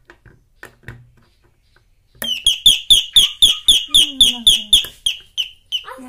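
Chitra Tech 'Parrot' electronic doorbell sounding its parrot call: a fast, regular run of shrill chirps, about four or five a second, starting about two seconds in and thinning out near the end. The bell sounding shows the newly wired switch connection works.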